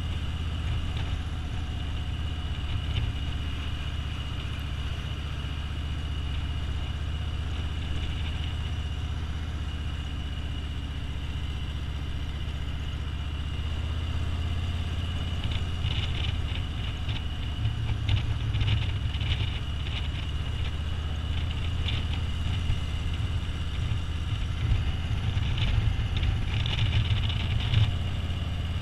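Touring motorcycle's engine running steadily at road speed, a low drone with wind and road noise on the bike-mounted microphone. About halfway through it grows louder and rougher, with gusts of higher noise.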